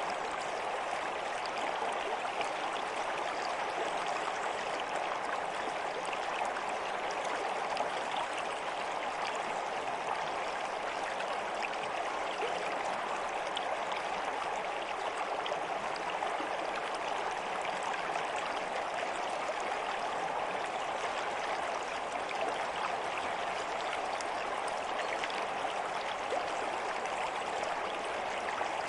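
Water flowing in a stream, a steady, unchanging rush and babble.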